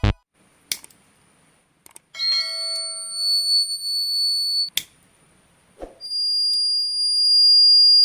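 Electronic alarm buzzer of a homemade fire alarm detector sounding a steady high-pitched tone for about two and a half seconds, then, after a couple of short clicks, starting again louder and holding on continuously.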